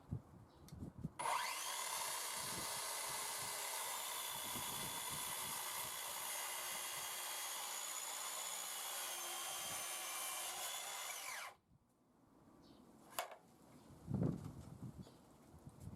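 Hitachi C18DBAL 18 V cordless 165 mm circular saw running under power for about ten seconds. It spins up quickly with a short rising whine, holds a steady high whine, then stops abruptly. A couple of light knocks follow near the end.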